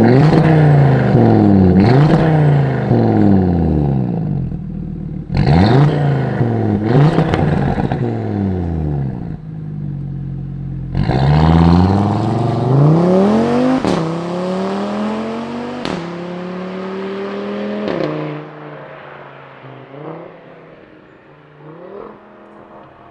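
Audi RS3 8V's turbocharged 2.5-litre five-cylinder through a 3.5-inch straight-pipe exhaust, revved hard in a series of quick blips while standing, settling briefly to idle, then accelerating away about eleven seconds in with three quick upshifts. It fades into the distance toward the end, where a few faint revs are still heard.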